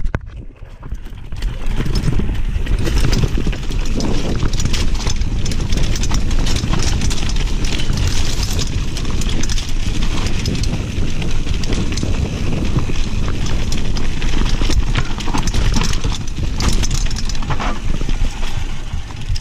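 Nukeproof mountain bike riding down a dry, rocky dirt trail: tyres crunching over dirt and stones and the bike clattering with quick knocks over the bumps, under a steady low rumble. It dips briefly near the start, then runs on loud.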